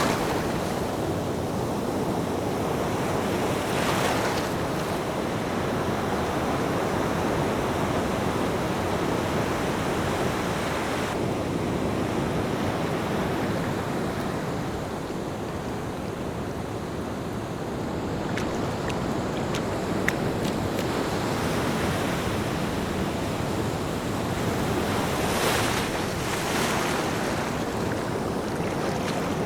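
Ocean surf: a steady rush of waves, with a wave breaking and washing up more loudly about four seconds in and again near the end.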